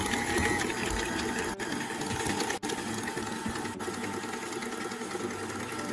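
KitchenAid stand mixer running with its wire whisk attachment, beating butter and sugars in a stainless steel bowl: a steady motor whir.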